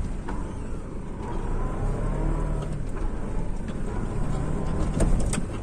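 Toyota Hilux 3.0 diesel pickup's engine running steadily at low revs while the truck reverses slowly along a dirt trail, heard from inside the cab. A couple of sharp knocks sound near the end.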